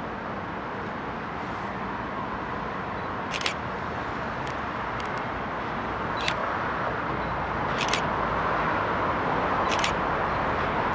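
Camera shutter clicking four times, a second or two apart, over the steady rumble of a distant train that grows gradually louder.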